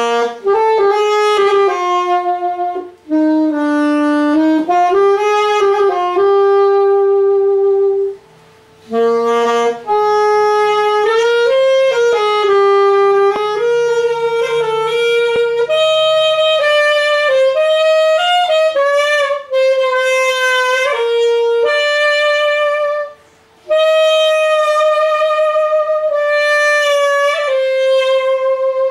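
Yamaha YAS-280 alto saxophone with its standard 4C mouthpiece played solo: a slow melody of held notes in phrases, several of the longer notes with vibrato, with two short breaks for breath, one about a third of the way in and one near the end.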